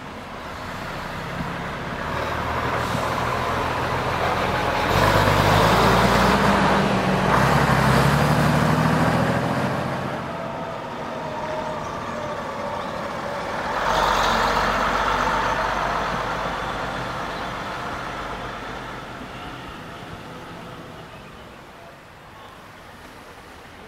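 Preserved bus passing by under power, its engine loudest from about five to ten seconds in, with a second surge of engine noise about fourteen seconds in, then fading away.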